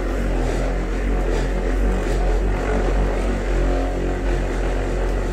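Corded electric polisher running steadily, its wool pad buffing plastic polish into a clear plastic dome, the motor drone wavering a little in pitch as it is pressed and moved over the surface.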